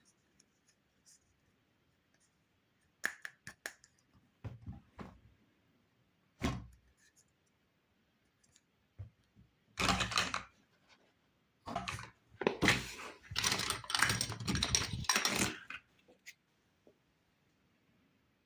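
Unboxing of a toy kitchen play set: scattered clicks and knocks as small pieces are handled, then a short rustle about halfway through and a longer spell of rustling and crinkling in the second half, like packaging being torn open.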